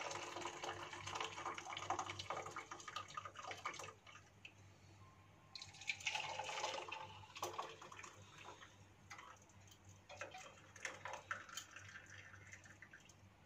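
Kadha (herbal decoction) poured through a strainer: a stream of liquid splashing for about four seconds, a second shorter pour around six seconds in, then scattered drips.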